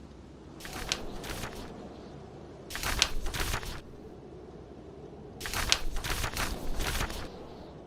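Book pages being turned, three times, each turn a quick crisp paper rustle of a few strokes. Under them runs a low steady background of storm wind and fire.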